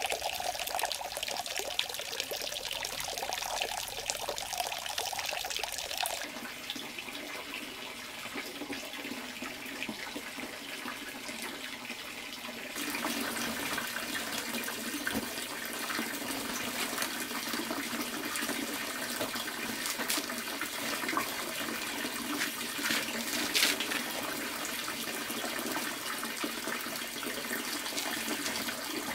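Running water, steady and rushing, whose sound changes abruptly twice in the first half, with a brief louder splash about two-thirds of the way through.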